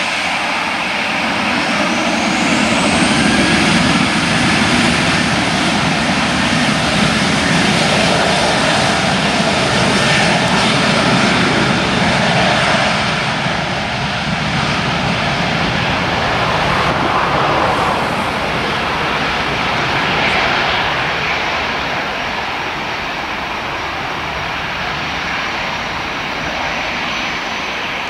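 Boeing 737-800's CFM56-7B turbofan engines spooling up for takeoff: a whine rises about two seconds in, then steady loud jet noise that slowly fades as the airliner rolls away down the runway.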